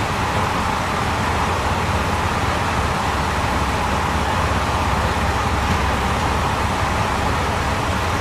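Diesel limited-express railcar pulling slowly into the platform, its engines giving a steady low rumble with no change in level.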